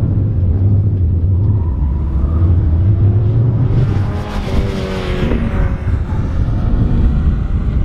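A 2001 Mazda Miata's four-cylinder engine revving and pulling hard through an autocross course. The sound swells and turns brighter as the car comes nearest, about four seconds in.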